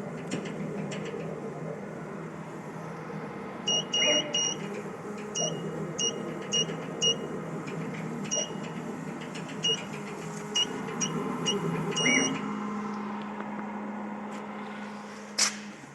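CO2 laser cutting machine running with a steady mechanical hum. About a dozen short, high-pitched beeps sound at irregular intervals through the middle, and a sharp click comes near the end.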